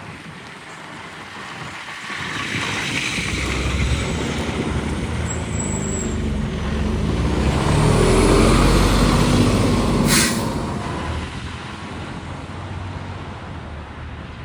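Fire truck's diesel engine growing louder as it drives past, then fading away, with a short sharp air-brake hiss about ten seconds in.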